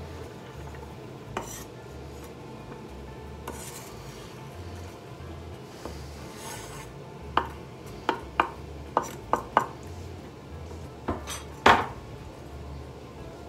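A metal knife scraping chopped red onion across a wooden cutting board into a stainless steel pot. This is followed by a quick run of about six sharp metallic clinks against the pot and one louder clink near the end.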